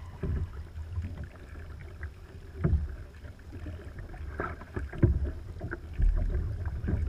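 Sea water slapping and sloshing against a Hobie Outback fishing kayak's hull, with a few scattered knocks and wind rumbling on the microphone. The wind rumble grows louder near the end.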